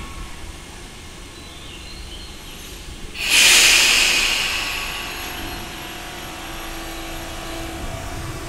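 Tobu 20000-series commuter train standing at the platform with a steady hum; about three seconds in, a sudden loud hiss of air, typical of the air brakes being released before departure, that fades away over a couple of seconds. A faint steady hum follows as the train starts to move near the end.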